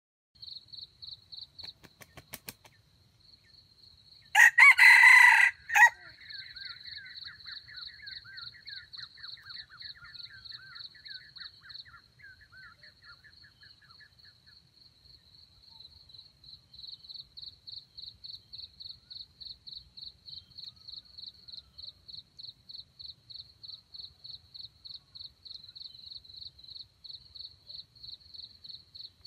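Red junglefowl rooster crowing once, loud and brief, about four seconds in. Under it an insect chirps steadily in an even, high-pitched pulse.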